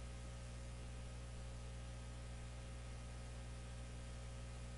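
Steady low electrical hum with faint hiss from the recording chain, with no other sound.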